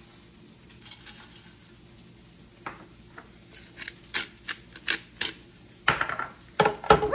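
A utensil clicking and scraping against a bowl as cut potatoes are stirred with seasoning. It is mostly quiet for the first few seconds, then a run of sharp clicks grows busier and louder over the second half.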